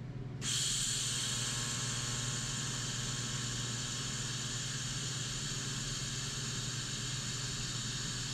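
Shop heater kicking on: a steady hiss that starts suddenly about half a second in, over a low hum.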